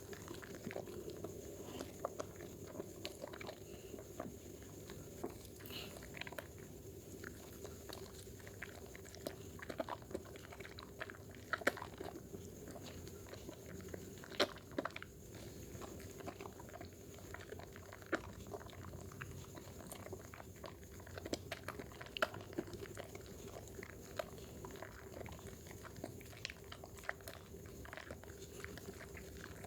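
A wet bar of Dermythol soap being lathered: a continuous stream of irregular wet clicks and crackles from the working foam, over a faint steady hum.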